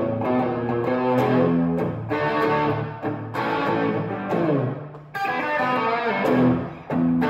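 Semi-hollow electric guitar played through a Two-Rock Bloomfield tube amplifier: a picked riff of single notes and chords in short phrases, with brief breaks about five and seven seconds in.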